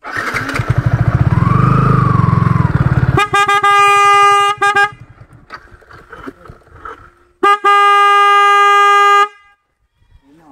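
A motorcycle engine running for about three seconds, then two long, steady horn blasts a few seconds apart.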